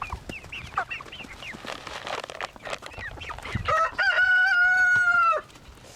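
Chickens clucking and chirping at feeding time, then a rooster crows once near the end, one long call of about a second and a half that is the loudest sound.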